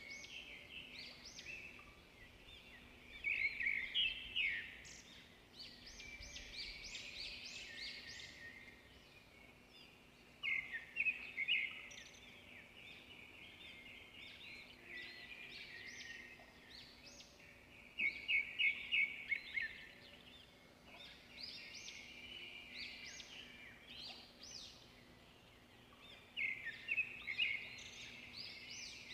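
Birds chirping in groups of quick, high notes that come back about every seven or eight seconds, over a faint steady hum.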